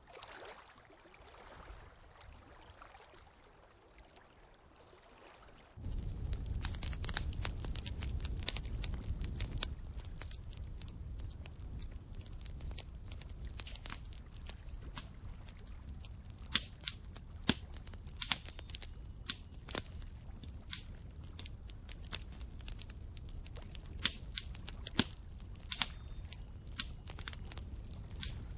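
Faint quiet background for the first six seconds. Then a campfire comes in suddenly: a steady low rumble of burning with sharp crackles and pops, which come more often toward the end.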